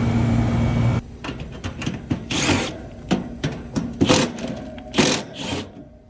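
Trane XR11 R-22 outdoor condenser unit running with a steady hum, cutting off abruptly about a second in as it is shut down. A run of clicks, knocks and scrapes follows.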